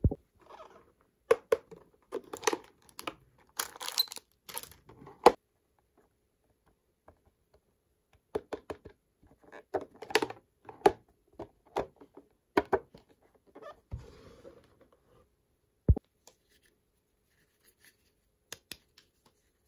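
Plastic packaging crinkling and tearing while small plastic toy pieces click and tap, in irregular bursts with pauses between. There is a sharper knock at the very start and another about three-quarters through.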